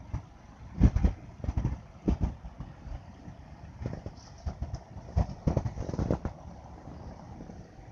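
Low hum of slow freeway traffic on a snowy road, broken by a dozen or so irregular low thumps and rumbles, the loudest about a second in and again around five to six seconds in.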